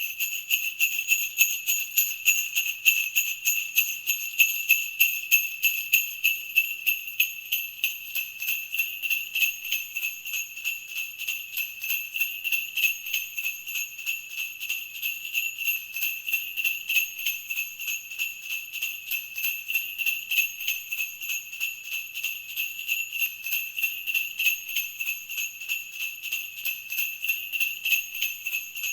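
Sleigh bells jingling continuously, shaken in a steady, even rhythm with no pauses.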